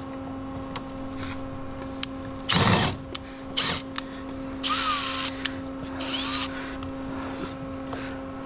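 Power drill driving screws into crate lumber in four short bursts, the first and loudest about two and a half seconds in, the motor's pitch sliding during the later ones. A steady low hum runs underneath.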